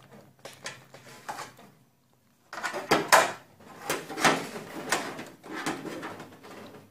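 Repeated knocks and scrapes of a metal dent-repair rod being worked inside a car trunk lid against its inner bracing. They are faint at first, then louder and sharper from about two and a half seconds in.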